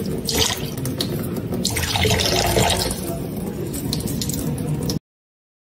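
Thin stream of tap water running and splashing into a metal bowl in a kitchen sink. It cuts off suddenly about five seconds in.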